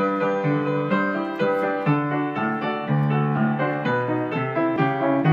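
Intro music: piano, with notes and chords changing about every half second.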